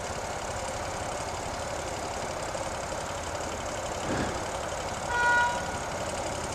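Motorcycle engine idling steadily while stopped. About five seconds in comes a short, steady, high-pitched beep, the loudest sound here.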